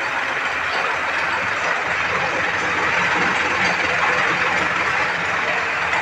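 Tractor engine running steadily, driving a poultry feed mixer through its shaft coupling and belt pulley: a constant mechanical noise with no change in speed.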